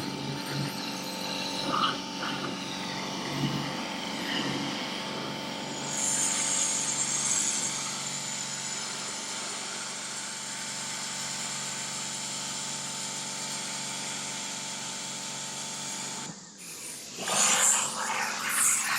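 Power tool motor running steadily with an even whine, briefly dropping out near the end.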